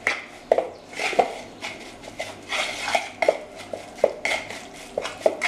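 Spoon stirring a wet herb, spice and olive-oil marinade in a plastic bowl, scraping and clicking irregularly against the bowl's sides.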